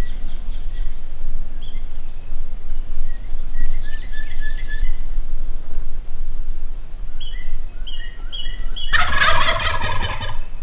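Wild turkeys calling: runs of short, clear yelping notes, then a tom's loud gobble about nine seconds in, lasting about a second and a half. A quieter gobbling rattle comes about four seconds in.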